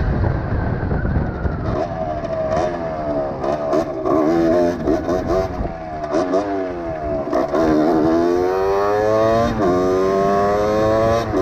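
Rieju MRX motorcycle engine under way, its revs climbing and dropping back again and again. Wind rumbles on the microphone in the first couple of seconds.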